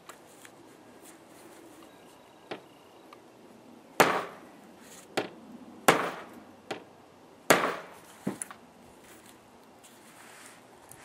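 Ball-peen hammer striking a snap-setting punch to crimp a snap fastener through jacket fabric: three hard blows about two seconds apart, each followed by a lighter tap, after a few small clicks as the snap parts are fitted by hand. The blows land on a base the owner finds not solid enough to set the snap properly.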